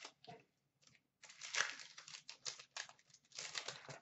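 Foil wrapper of an Upper Deck hockey card pack crinkling as hands tear it open and handle it, in short bursts with the longest stretch from just over a second in to nearly three seconds.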